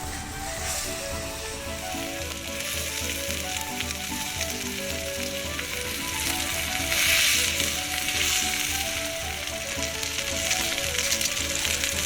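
Food frying in a hot pan over a wood fire: a steady sizzle with fine crackle, swelling louder for a moment about seven seconds in.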